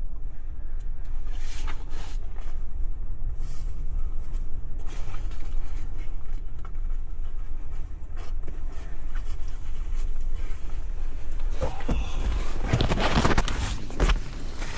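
Steady low rumble of wind buffeting a handheld camera's microphone, with rustling handling noise from the gripped camera near the end.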